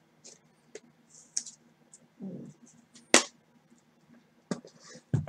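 1989 Score football cards being handled and sorted: scattered light clicks and scratches of cardboard, with a sharp snap about three seconds in and another near the end.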